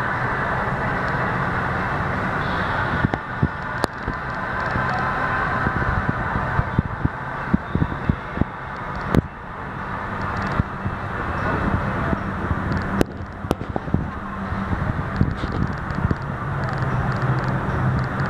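Steady murmur of a ballpark crowd and stadium ambience under a big roof, with scattered clicks and bumps from the phone being handled.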